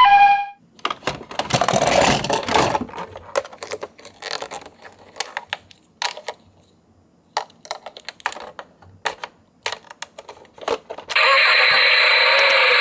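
A toy ambulance's two-tone siren cuts off, followed by a rattling scrape and then scattered clicks and knocks of small toy cars being handled. About eleven seconds in, a loud steady electronic sound from a toy's sound gimmick starts.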